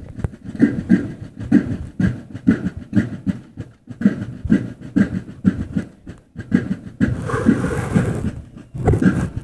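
A drum corps beating a marching cadence on snare drums, in a steady rhythm of about two to three strokes a second. About seven seconds in, the separate strokes merge into a continuous rush of sound for nearly two seconds.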